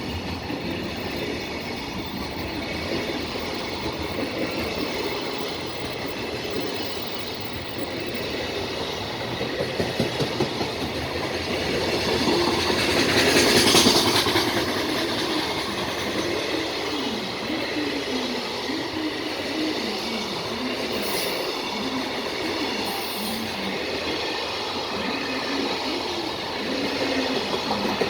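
Container freight train running past, its wagon wheels clacking over rail joints in a steady rumble. It swells to a louder rushing peak about halfway through, and a faint wavering squeal follows.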